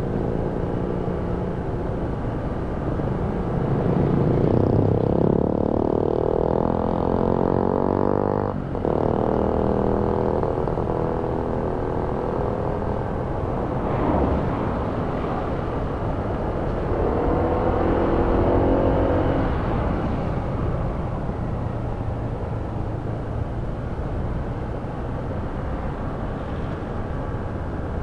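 Honda ADV 160 scooter's single-cylinder engine running under way over a steady rushing noise, the engine note swelling and rising a few seconds in and again past the middle, with a brief dip about eight seconds in.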